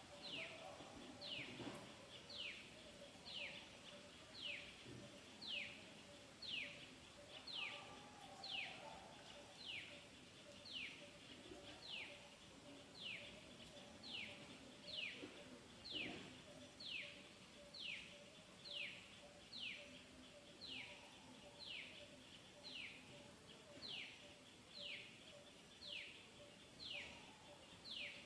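A bird calling faintly: a short, high note sliding downward, repeated steadily about once a second, over a faint steady hum.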